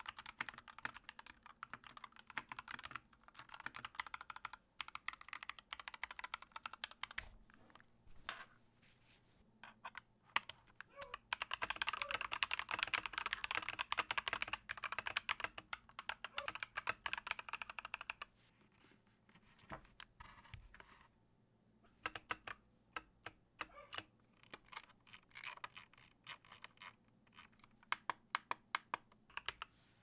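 Typing on mechanical keyboards: first a YUNZII keyboard with red switches, then a Gamakay LK67 with Ajazz yellow diced fruit switches and Yunzii doodle keycaps. Runs of quick keystrokes with pauses between, the fastest and densest flurry in the middle.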